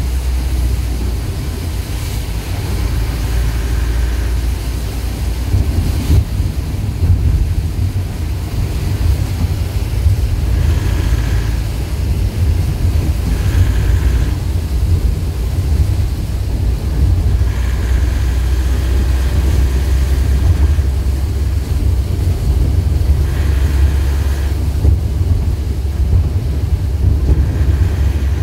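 Inside a moving vehicle on a rain-soaked road: a steady low rumble of engine and tyres with a hiss of rain and spray. A short high tone sounds briefly about six times.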